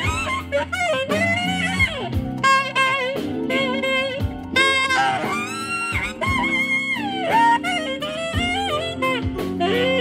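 A saxophone, picked up by a clip-on microphone on its bell, plays a jazzy melody with bending, sliding notes over steady backing chords.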